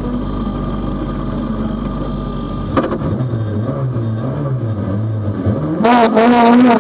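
Toyota Corolla GTI rally car's engine heard from inside the cabin, idling steadily at the start line. After a click about three seconds in the revs are held and waver, then near the end the engine is revved hard for the launch as the start light turns green.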